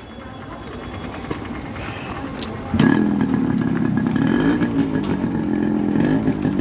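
Yamaha RX100's two-stroke single-cylinder engine, breathing through its original stock silencer, being kick-started: it catches suddenly about three seconds in and then runs, its pitch rising and falling with small blips of the throttle.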